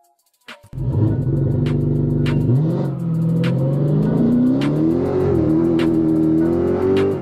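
Chevrolet Colorado pickup's engine under acceleration: it comes in suddenly, climbs in pitch about two and a half seconds in, then holds high and steady before cutting off abruptly. A faint music beat runs underneath.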